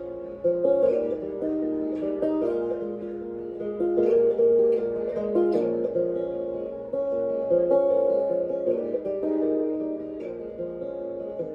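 Solo acoustic guitar playing the instrumental introduction to a blues song, notes plucked one after another with no singing yet.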